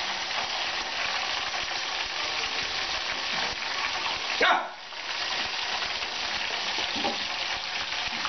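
Food frying in a pan of hot oil, a steady sizzle. About halfway through, a dog gives one short whine that slides down in pitch.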